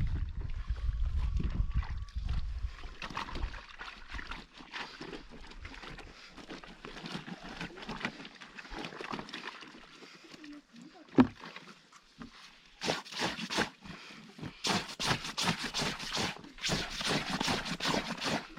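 Water sloshing and splashing as a heavy blanket is washed by hand, in irregular strokes that get busier in the last few seconds, with one sharp knock about halfway through.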